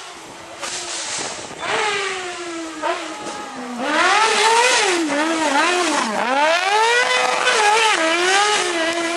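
Racing buggy's engine revving hard on a dirt stage, its pitch climbing and dropping several times as it shifts and lifts off for corners. It gets louder from about four seconds in as it passes close.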